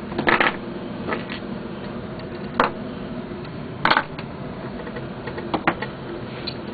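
Small metal parts and hand tools clinking as they are handled, with a handful of sharp separate clicks over a steady low hum.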